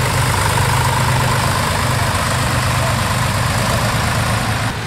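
Small tractor's diesel engine running steadily at low revs as the tractor drives past.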